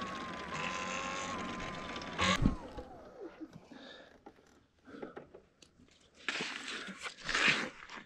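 Electric motor of a Talaria electric dirt bike whining steadily while riding, then winding down in pitch as the bike slows, with a knock about two seconds in. Scattered scuffs and rustling follow, with a louder rustling patch near the end.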